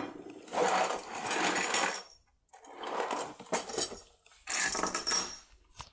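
Small metal lock parts being handled and shaken together, rattling and clinking in three bouts of about a second and a half each.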